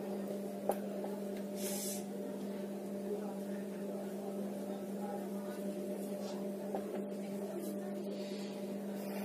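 A steady low electrical hum, with a click about a second in and two brief faint scratches of a marker writing on a whiteboard.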